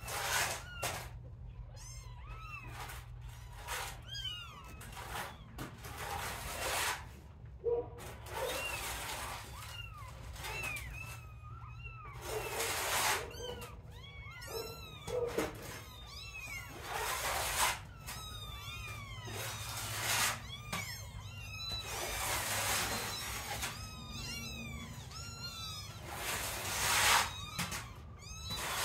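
Kittens mewing: many short, high-pitched calls that rise and fall, coming thick and fast, mixed with short bursts of noise.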